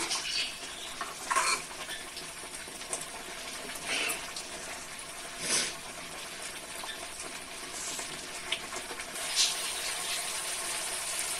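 Onion-chilli paste and ground spice masala sizzling as it fries in oil in a metal pan, stirred slowly with a steel ladle, with a few louder scrapes of the ladle. The masala is being fried until the oil starts to separate.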